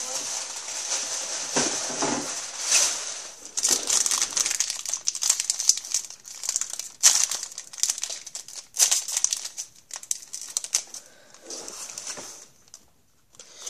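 Paper crinkling and being crumpled by hand as it is gathered up for the trash, a dense irregular crackle that thins out near the end.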